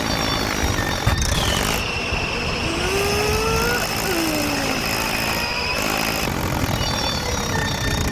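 A small engine running steadily. From about two seconds in to about six seconds, a high steady whine and a few short rising and falling pitch glides sound over it.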